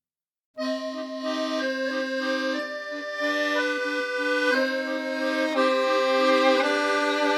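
Accordion music starts abruptly about half a second in, after a brief silence, playing sustained chords and a melody in a musette style.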